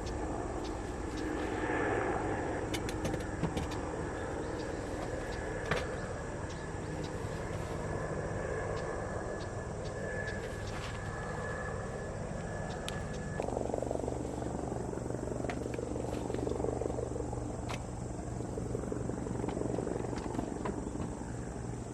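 Steady low rumble, like a running vehicle, with scattered light clicks; the sound changes abruptly about 13 seconds in.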